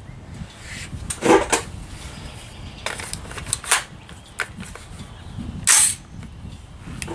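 Several gunshots at a shooting range, some near and some fainter and more distant, the loudest about a second in and just before six seconds.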